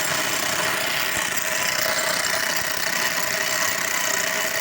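Engine-driven machinery running steadily, with a constant whine over the engine noise.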